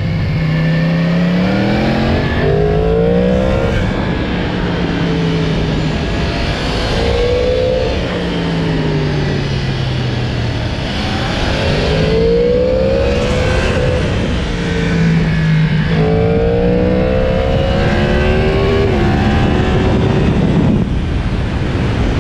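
Yamaha MT-10's crossplane inline-four engine on its stock exhaust, running under load and revving up and down: its pitch climbs under acceleration and drops back at gear changes or when the throttle is eased, several times over.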